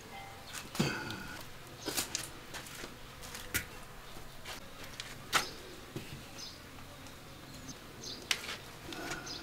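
Cookware being handled: a scattered series of sharp knocks and clinks, about six in all, the loudest about five and a half seconds in, with a short scraping sound about a second in, as a metal wok and a woven bamboo steamer are moved and set in place.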